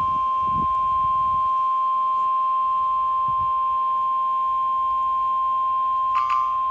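NOAA Weather Radio warning alarm tone: one long, steady high beep from a weather radio receiver, the 1050 Hz alert signal sent before a severe weather warning is read. A short burst of crackle comes over it near the end.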